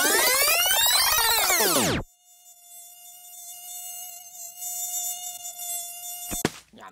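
A loud electronic sweep rising and then falling in pitch, then a cartoon bee's steady buzzing sound effect that stops with a click near the end.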